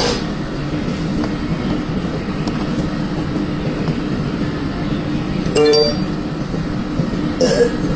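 A single short, pitched burp about five and a half seconds in, over a steady low rumbling background; a shorter burst of sound follows near the end.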